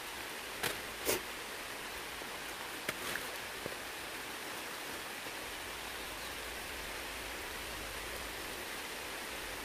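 Steady outdoor hiss, with a handful of short sharp snaps in the first four seconds as fruit clusters are plucked by hand from a tree trunk.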